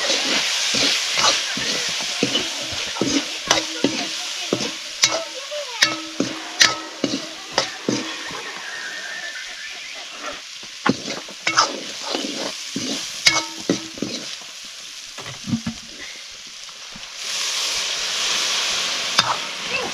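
Bullfrog curry sizzling in a pan while it is stirred, with frequent clicks and knocks of the stirring utensil against the pan. The sizzling grows louder near the end.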